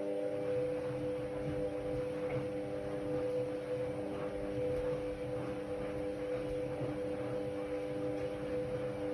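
Ariston Margherita 2000 washer-dryer running with a steady electric motor hum.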